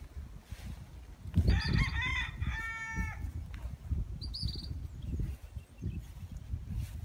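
A rooster crows once, about a second and a half in, a call lasting under two seconds that ends on a held note. A small bird chirps briefly a little later, over a low rumble.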